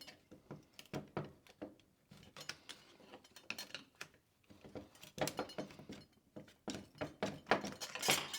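Irregular metallic clicks and clinks of small steel parts from an NP203 transfer case shifter (plates, springs, washers) being handled and worked loose during disassembly. The clicks come thicker and louder in the second half.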